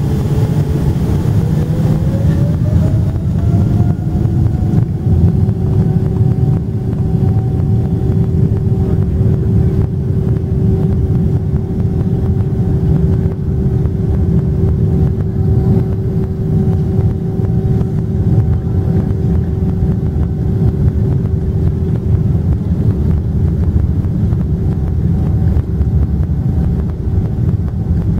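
Boeing 777-300ER's GE90-115B turbofan engines heard from inside the cabin, spooling up for the takeoff roll. An engine whine climbs in pitch over the first few seconds and then holds steady over a loud, constant rumble.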